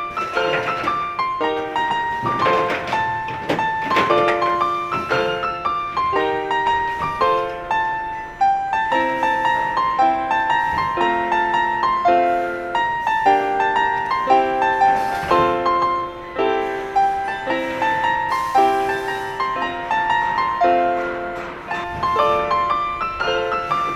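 Background music: a piano playing repeated broken chords at an even pace.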